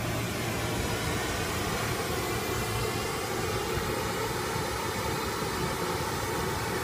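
Studio monitor playing steady pink-noise test signal for a Smaart measurement, an even hiss that holds at a constant level.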